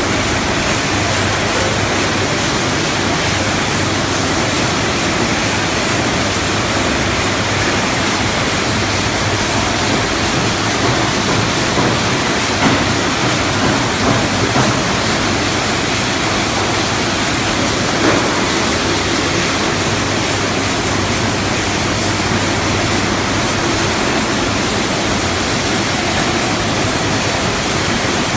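Poultry processing line machinery: a steady, loud rushing din from the overhead shackle conveyor and processing machines, with a few sharp clanks about halfway through.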